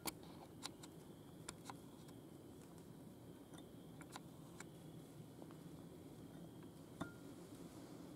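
Near silence: quiet background hiss with a faint steady high tone, broken by a scattering of small sharp clicks and crackles, the loudest right at the start and another about seven seconds in.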